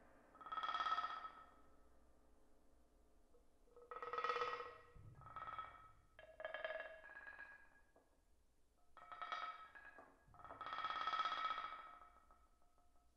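Metal percussion ringing in about six separate swells, each rising and fading over a second or so, with a high ringing tone held through them.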